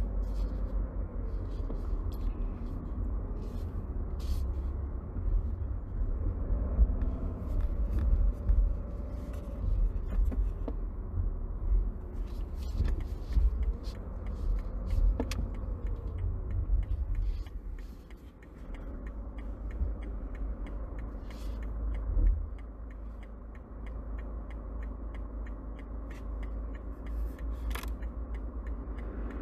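BMW G20 318d's four-cylinder diesel heard from inside the cabin: a steady low rumble with a fainter tone that rises and falls. Short faint clicks are scattered through it, and the rumble eases briefly about eighteen seconds in.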